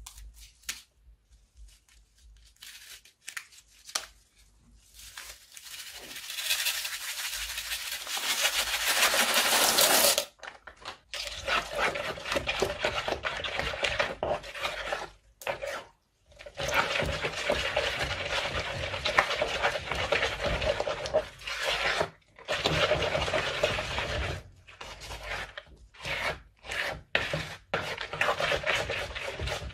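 Crunchy slime being made: a stream of small plastic beads pours from a cut piping bag into wet glue, a hiss that builds and cuts off suddenly about ten seconds in. Then a spatula stirs the thick glue-and-bead mixture against a bamboo bowl, giving wet, gritty scraping strokes with short pauses.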